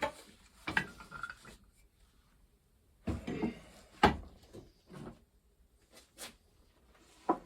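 Things being handled and set down: a string of irregular knocks and clatters, the loudest about four seconds in.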